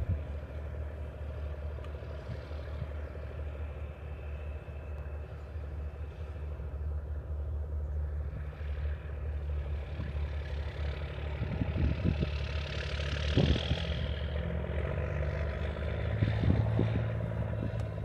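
An engine running steadily with a low hum, with a louder swell of noise about two-thirds of the way through and a few short knocks.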